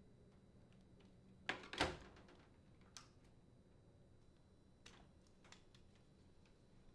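A quick cluster of clicks and a brief clatter about one and a half seconds in, then a few single fainter clicks: wire connectors being pulled off the terminals of a dishwasher door latch and the latch being handled.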